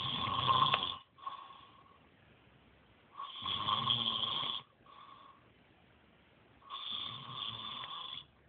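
Snoring: three long snores of about a second and a half each, coming roughly every three and a half seconds. The first two are each followed by a short, fainter sound.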